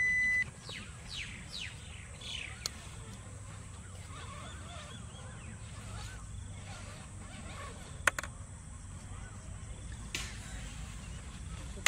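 A short electronic beep from the game's digital timer, then quiet outdoor ambience: a few falling bird calls in the first few seconds over a low rumble, and a sharp click about eight seconds in, with a softer one about two seconds later.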